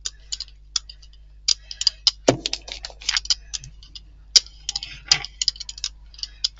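Paint brayer rolled back and forth over wet acrylic paint on a gel printing plate, giving irregular clicks and ticks, with one louder knock a little over two seconds in. The roller is taking excess white paint off the plate.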